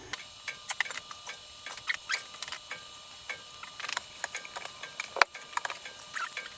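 Irregular light metallic clicks and ticks of transmission parts being handled during assembly of an automatic transmission's clutch pack, with one sharper click about five seconds in.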